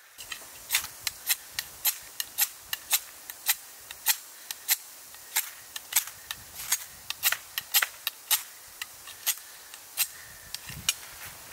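A quick, irregular run of sharp cracks and pops, two to four a second, over a faint steady hiss.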